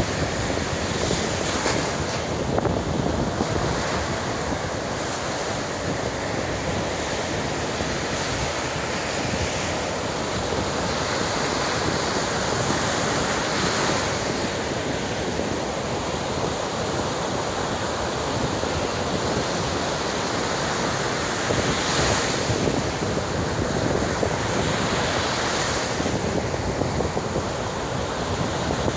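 Heavy ocean surf breaking and washing onto a beach in a continuous roar, with occasional louder swells of breaking waves, and wind buffeting the microphone.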